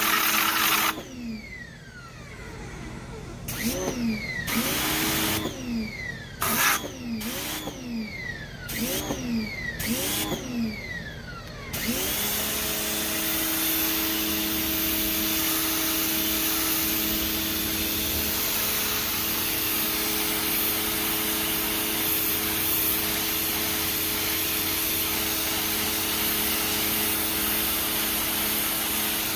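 Electric pressure washer (Westinghouse ePX 1500) cutting out and restarting in a run of short bursts, its motor whining down in pitch each time it stops. From about twelve seconds in it runs steadily, with the hiss of the fan-pattern spray.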